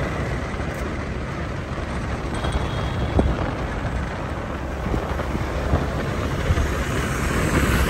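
Steady rush of wind and road noise while riding a motorbike, with a low rumble of wind buffeting the microphone.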